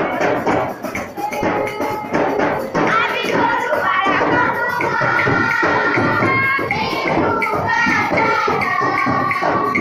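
Loud live dance music with a fast, steady percussion beat; from about three seconds in, held melodic lines, singing or keyboard, come in over the rhythm.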